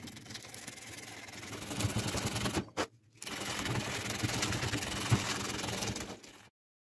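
Sandpaper rubbed by hand in rapid back-and-forth strokes along a steel knife blank made from car spring steel, a fast scratchy rubbing. It pauses briefly about three seconds in and cuts off abruptly about six and a half seconds in.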